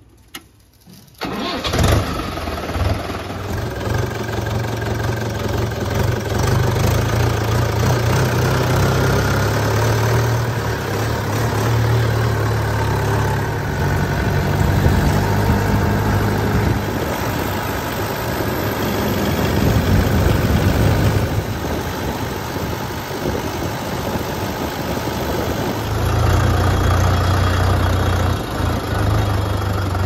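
Tractor diesel engine started with the key: it catches about a second in, then runs steadily with a low rumble as the tractor drives along.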